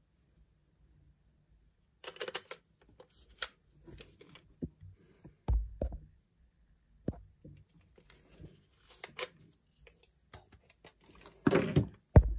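Handling noise from a hand holding and fingering a DSLR camera body: scattered small clicks and rustles, a couple of low thumps, and a louder rustling burst near the end.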